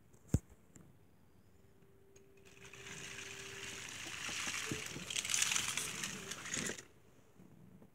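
Small die-cast toy trains pushed along a carpet by hand: a single click about a third of a second in, then a rustling scrape that builds for a few seconds and stops suddenly near the end.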